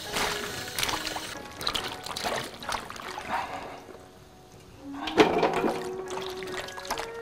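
Hands swishing and stirring a basinful of red chili peppers in water, with splashing and water trickling in from a hose; the loudest splash comes about five seconds in. Background music with held notes plays underneath.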